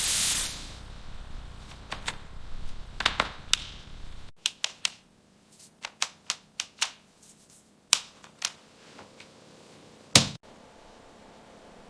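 Pressurised gas hissing from a refrigerator's cooling-system hose connection as the hose is disconnected, dying away about half a second in. It is followed by a run of sharp, irregular clicks and taps from the sealing work, the loudest coming near the end.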